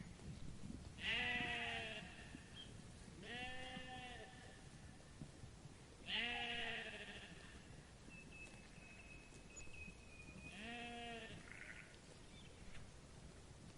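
Sheep bleating: four separate drawn-out, wavering bleats, with the first and third the loudest.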